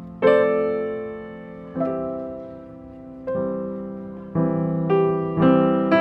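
Background piano music: slow chords struck every second or so, each ringing and fading before the next, coming a little quicker near the end.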